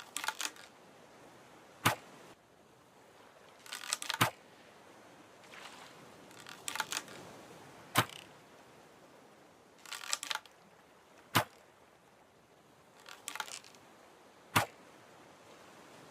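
A bow being drawn and shot five times, about every three seconds. Each time a short rattling creak is followed a second or so later by a sharp snap of the string.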